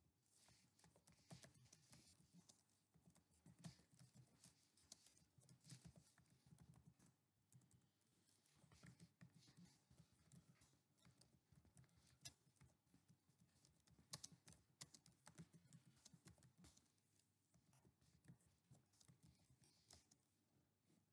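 Faint, irregular clicking of computer keyboard keys being typed in quick runs with short pauses.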